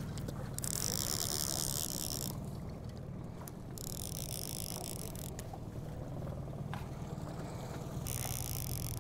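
Fishing reel cranked in three spells of a second or two each, a fast ratcheting whir, as the angler brings in a hooked kokanee. A small outboard motor runs steadily underneath.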